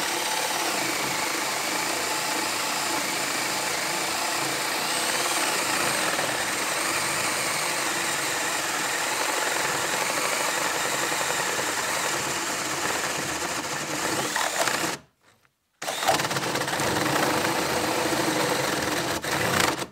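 Makita 12-volt brushed cordless drill driver turning a 1 1/8-inch spade bit through a wooden board, the motor running steadily under load and boring slowly on its low speed. The sound stops for under a second about three-quarters of the way through, then the drill starts again and runs until the bit breaks through.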